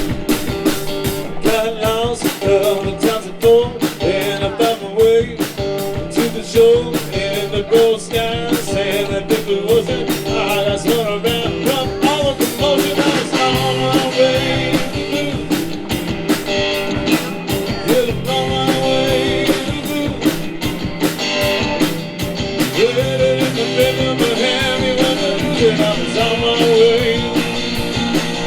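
Live blues band playing an instrumental passage: guitar lines with bent, sliding notes over a steady drum beat and bass.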